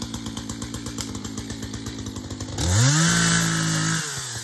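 Chainsaw idling with a rapid, even putter, then revved up sharply about two and a half seconds in, held at high speed for over a second, and dropped back to idle.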